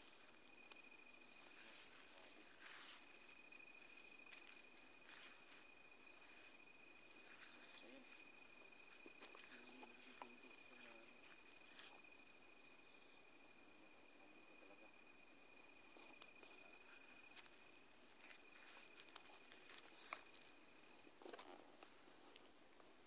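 Faint, steady chirring of night insects, crickets, with one high continuous band and a couple of fainter steady tones beneath it. A few faint scattered ticks and rustles come through now and then.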